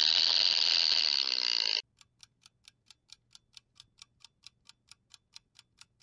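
Opossum call played as a quiz sound, a harsh hiss that cuts off suddenly about two seconds in. After it, a countdown timer ticks about four times a second.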